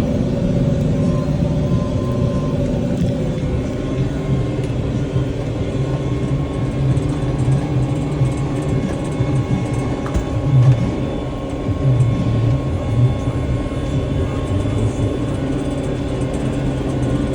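John Deere tractor engine running steadily while pulling a bush hog rotary cutter, with a couple of brief swells in level about ten and twelve seconds in.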